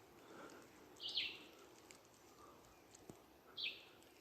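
A bird calling in woodland: two short notes, each sliding downward, about two and a half seconds apart.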